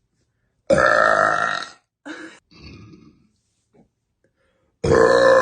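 A woman burping loudly: one long burp of about a second, a few softer short sounds after it, and a second loud burp starting near the end.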